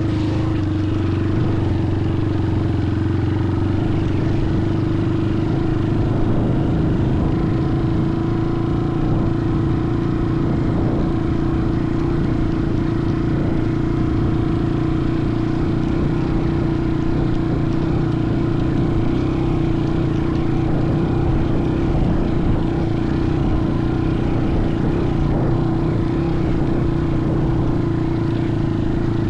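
A motor running steadily at an even speed, a constant droning hum with no change in pitch.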